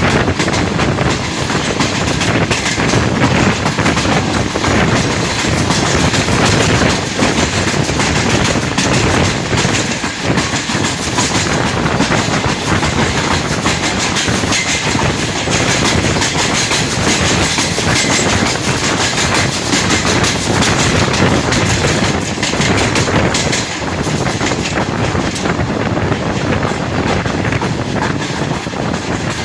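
Karakoram Express passenger train running at speed without stopping, a steady loud rush of wheel-on-rail noise with rapid clickety-clack as the wheels cross rail joints.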